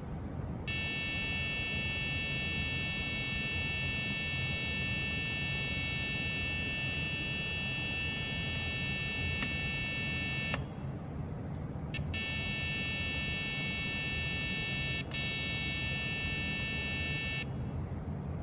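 Buzzer on an HCS12 Dragon Board sounding a steady high tone for about ten seconds, cut off by a click. After a brief chirp it sounds again for about five seconds. The tone is the board's audible signal of a valid input or a change of state on the DIP switch.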